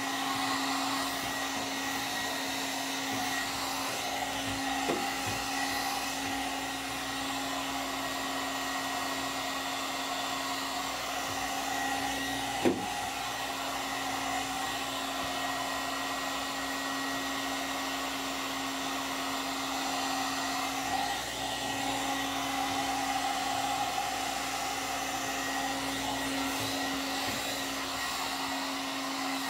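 One-step hot-air brush hairdryer running steadily: a continuous blowing noise with a low hum and a faint high whine. One short knock about thirteen seconds in.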